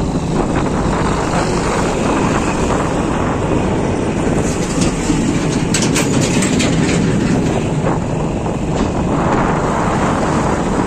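Motorbike riding a rough dirt road close past diesel trucks: a steady rumble of engines, tyres and wind, with a run of sharp rattling clicks about halfway through.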